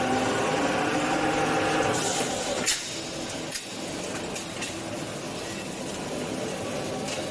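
Roll-forming machine running as a steel rack profile feeds through its rollers: a steady mechanical hum with several tones. A sharp metal clack comes just under three seconds in and a smaller one about a second later, after which the running is quieter.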